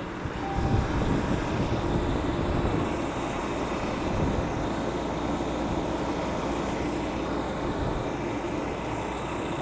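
Steady low rumble of a passenger train standing at the platform, its Siemens SC44 Charger diesel locomotive running.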